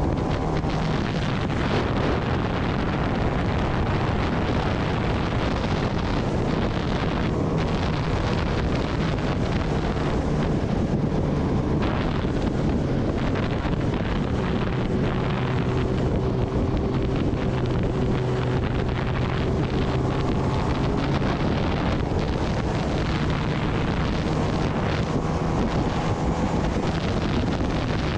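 Kawasaki Ninja ZX-10R's inline-four engine running while cruising on the road, largely buried under heavy wind noise on the microphone. The engine note drops a little for several seconds midway and then climbs back.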